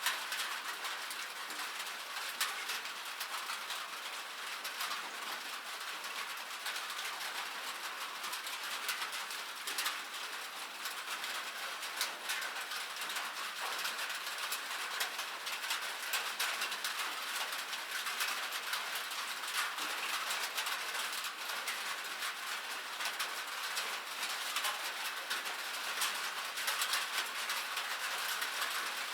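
Rain pattering on a metal surface: a steady, dense stream of small ticks and taps over a bright hiss, with no low rumble.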